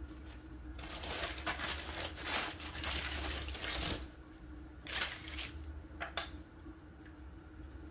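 Kitchen handling noise as sugar syrup is applied to a rolled sponge cake: a few seconds of soft scraping and rustling, a shorter burst, then a single light clink of a dish or utensil about six seconds in.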